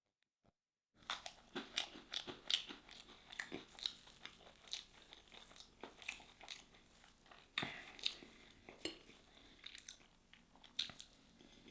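A person chewing and biting crunchy food, with irregular crunches and mouth clicks starting about a second in.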